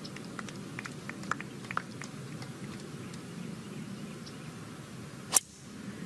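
A driver striking a teed golf ball on a tee shot: one sharp, loud crack about five seconds in, over a steady low murmur from the gallery.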